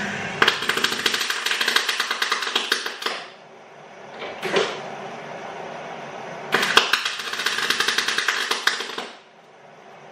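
MIG welder arcing: two bursts of steady, dense crackle and sizzle, each about three seconds long, with a brief blip between them.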